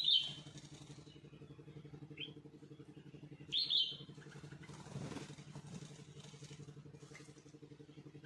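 Small birds giving short, sharp chirps, one right at the start and another about three and a half seconds in, with a fainter one between, over a steady low motor hum. About five seconds in there is a brief rustling burst of noise.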